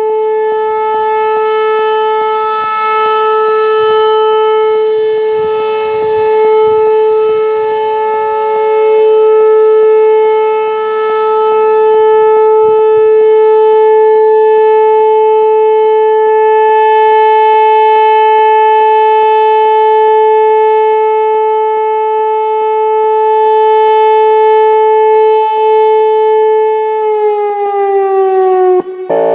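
Whelen Vortex R4 electronic warning siren sounding a steady Alert tone, swelling and fading in loudness as its rotating speaker head turns. Near the end the pitch glides down as the Alert signal winds down.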